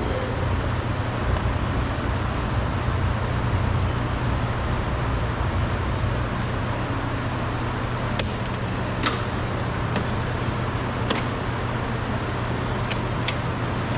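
A few sharp plastic clicks, the strongest about eight seconds in, as the wiring connectors and the handle cable are unclipped from the door trim panel, over a steady background hum and noise.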